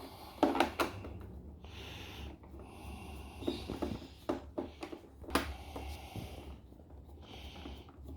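A screwdriver working tight Torx screws out of the plastic foot of a Wii Fit balance board, giving scattered clicks and scrapes. Two hissy breaths, each about a second long, come in between.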